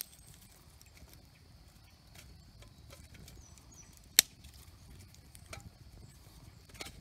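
Twigs burning in a small titanium wood-burning firebox: scattered faint crackles and one sharp loud pop about four seconds in, over a low steady rumble.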